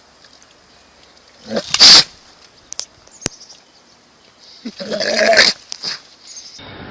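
An animal calling twice: a short call about a second and a half in, then a longer one around five seconds. A sharp click falls between them.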